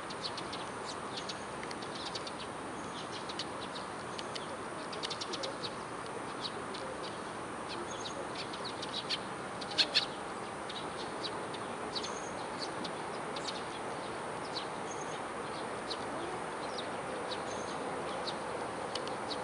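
Small birds chirping, with short, high notes scattered throughout over a steady background noise. Two louder, sharp notes come close together about ten seconds in.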